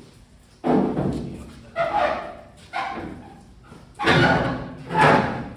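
Five loud, irregular bangs from the truck's bed rack being knocked and dropped, each dying away over about half a second.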